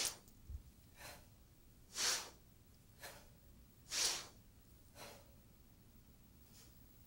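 Forceful rhythmic breathing by people doing Tensegrity movements: a strong, hissing breath about every two seconds, with a softer breath between each, the last one fainter.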